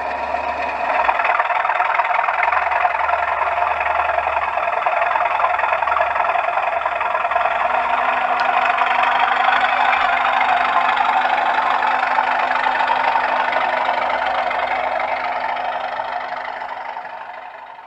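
A model locomotive's DCC sound decoder playing a running engine sound through its small speaker. The sound is steady and fades away over the last couple of seconds.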